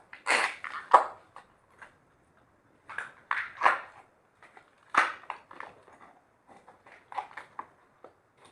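Slime being mixed and squished, giving irregular bursts of sticky clicks and pops.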